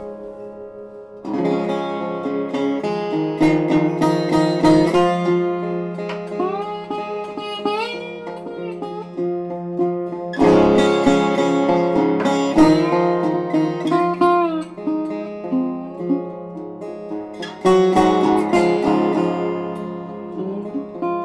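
Background instrumental music of plucked and strummed strings, with notes sliding in pitch. Fresh strummed phrases come in about a second in, about ten seconds in and again near the end.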